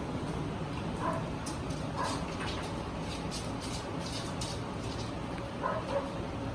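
A dog giving short, high whimpers about four times, two of them close together near the end, with light clicking in the middle.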